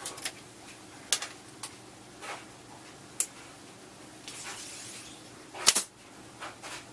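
Handling noise from a fiberglass takedown recurve bow: a few scattered light clicks and knocks, with one sharper, louder knock near the end.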